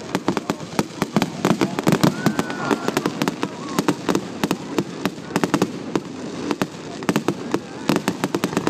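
Fireworks display: aerial shells and other fireworks going off in a rapid, irregular string of bangs and crackles, several a second without a break.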